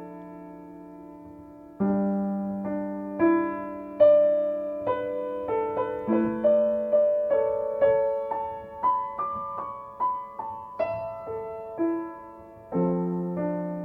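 Solo piano tuned to C = 528 Hz, playing a slow melody of single notes over held low chords. The notes come quicker through the middle, and a fresh low chord is struck near the end.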